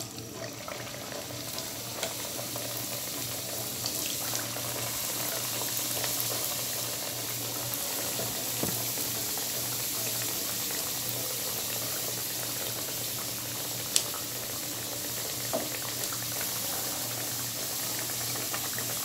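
Potato-stuffed puris deep-frying in hot oil: a steady sizzle and bubbling that builds over the first couple of seconds and then holds. A sharp tick about fourteen seconds in.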